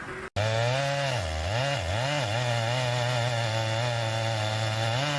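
STIHL chainsaw engine running at high revs, its pitch dropping sharply and recovering three times in the first couple of seconds and once more near the end, as when the chain bites into wood under load, and otherwise holding steady.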